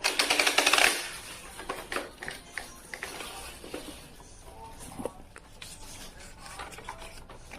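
Nerf Mega Thunderhawk foam-dart blaster being worked: a loud rushing burst through the first second, then scattered plastic clicks and scrapes of handling and reloading.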